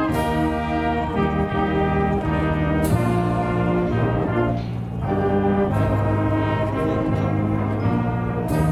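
A school wind band playing: brass chords with sousaphones, trumpets and trombones, held notes changing every second or so, and a short percussion accent about every three seconds.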